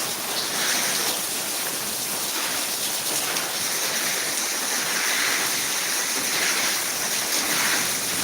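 Heavy rain pouring steadily, its hiss swelling and fading every second or so.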